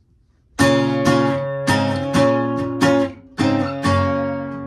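Taylor steel-string acoustic guitar strummed in full chords, starting about half a second in with strong strums roughly every half second, then quicker, lighter strumming near the end.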